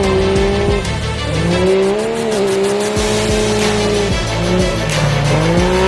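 A side-by-side rally car's engine running hard as it drives at speed on a dirt road. The engine note climbs and drops back several times as it accelerates and changes gear, with music playing underneath.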